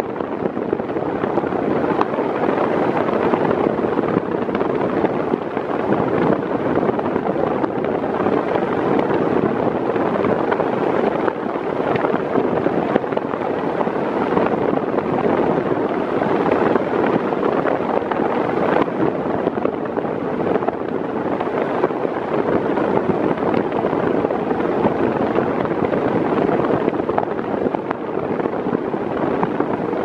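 Britânia Turbo B400 40 cm 130 W fan running at its maximum speed: a loud, steady rush of moving air.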